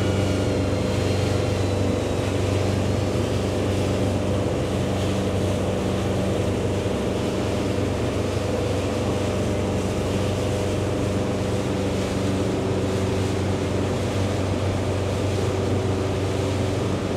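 Motorboat engine running with a steady, unchanging hum, mixed with wind and water noise.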